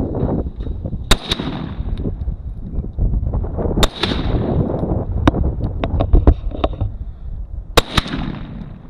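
Springfield M1A SOCOM 16 rifle firing .308 Winchester: three loud shots roughly three seconds apart, each with a ringing echo, and some fainter cracks in between. A low wind rumble runs underneath.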